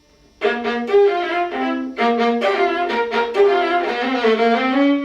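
A viola playing a short phrase of separate bowed notes, starting about half a second in, with a brief break near two seconds.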